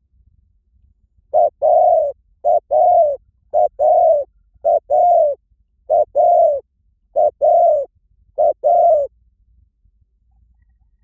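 Spotted dove cooing: seven two-part coos in a steady series, each a short note followed by a longer one, about one coo every second and a bit.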